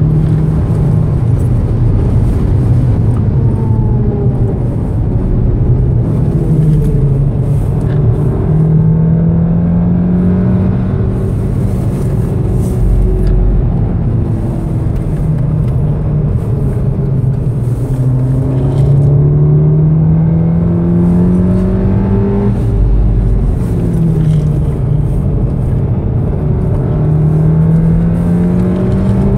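2014 VW Golf VII R's turbocharged 2.0-litre four-cylinder heard from inside the cabin under full throttle at around 5,000 rpm, its pitch climbing in long pulls and falling back several times at gear changes and braking, over steady road and tyre rumble.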